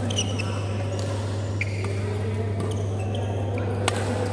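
Badminton rackets striking a shuttlecock in a fast rally: several sharp hits about a second apart, with short shoe squeaks on the court mat. A steady low hum runs underneath.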